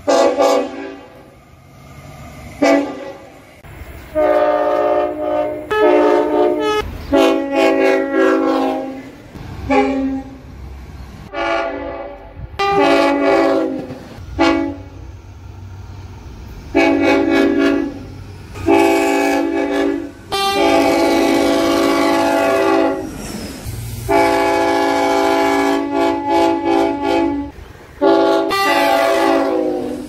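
Queensland tilt train sounding its country horn over and over: many blasts of a multi-note chord, some short toots and some held for a second or more, with the train's running rumble between them.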